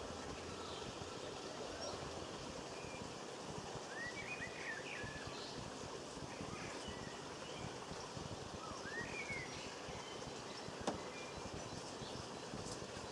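Garden songbirds giving a few short, rising chirps now and then over a steady outdoor background hiss, with a single sharp click near the end.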